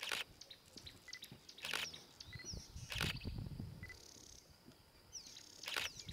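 Birds chirping and calling in short, quick falling notes throughout, over four brief bursts of rustling noise that are the loudest sounds.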